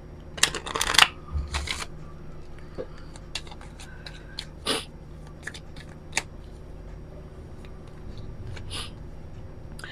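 A deck of oracle cards being shuffled by hand: a cluster of quick sliding, flicking bursts in the first two seconds, then scattered single soft clicks as the cards are tapped and squared.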